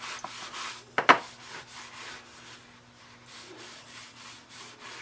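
Shellac being rubbed onto a wooden mini baseball bat, with quick repeated strokes of the applicator across the wood, a few a second, as the pores are sealed before the graphics are painted. A brief sharp sound stands out about a second in.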